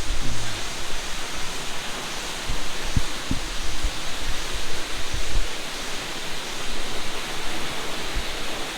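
Waterfall: a steady, even rush of falling water, with a few brief low thumps on the microphone.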